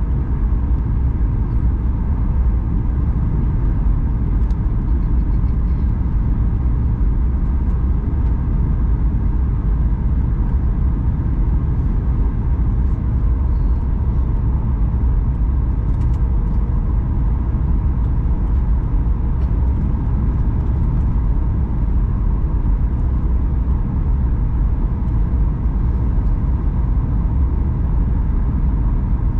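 Steady cabin noise inside a Boeing 737 MAX 9 on final approach, heard from a window seat: a constant low rumble of the CFM LEAP-1B engines and airflow over the extended flaps, with a faint steady hum above it.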